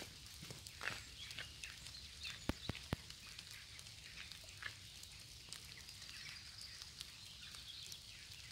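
Faint rainy woodland ambience: scattered short bird chirps over a soft high hiss, with a couple of sharp drip-like ticks near the middle.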